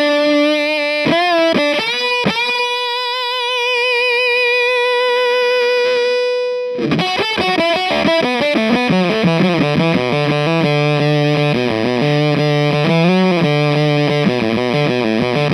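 Electric guitar played through an EarthQuaker Devices Terminal fuzz pedal: a few short notes, then one note held with vibrato for about four seconds that cuts off abruptly. Fast, repeated riffing follows.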